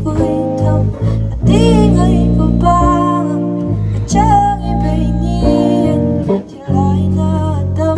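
A song with guitar backing a singing voice, the held sung notes wavering with vibrato over steady low bass notes.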